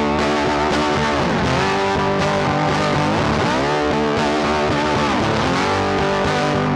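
Background music led by a distorted electric guitar, its held notes bending up and down in pitch.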